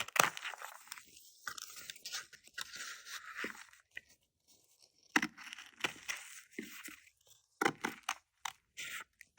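Scissors cutting through tape-covered paper, giving irregular crunchy snips and crinkles with short pauses between.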